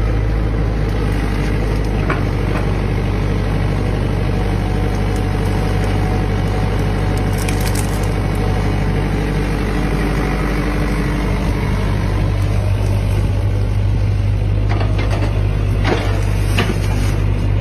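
Excavator's diesel engine running with a steady low drone, with a few short knocks near the end.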